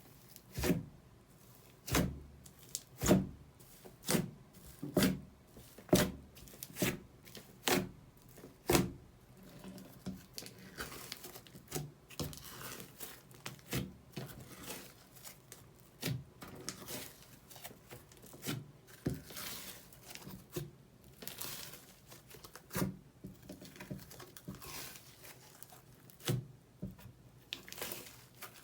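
Slime being pressed and stretched by hand. It makes sharp pops about once a second for the first nine seconds, then softer, irregular crackling and squishing.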